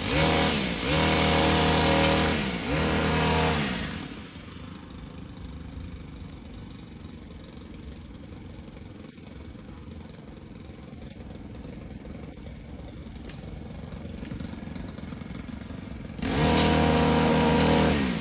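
A small petrol engine on a tree-work power tool, such as a chainsaw or hedge trimmer, run at full throttle in short bursts. After about four seconds it drops to a low idle, then revs high again near the end.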